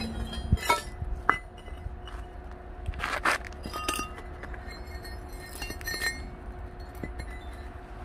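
Cut pieces of thick steel plate knocking and clinking against each other as they are handled, several separate clinks, some with a short metallic ring.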